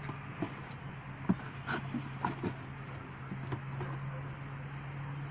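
Scattered knocks and clicks of a cardboard shoebox being handled and opened, over a steady low hum.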